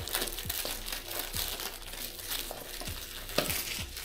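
Thin clear plastic wrap being torn and peeled off a cardboard box by hand, crinkling and crackling irregularly with small sharp snaps.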